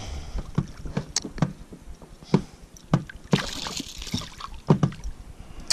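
A small pike thrashing and splashing at the surface beside an inflatable boat, with a burst of splashing about three seconds in. Scattered sharp knocks and clicks are heard throughout.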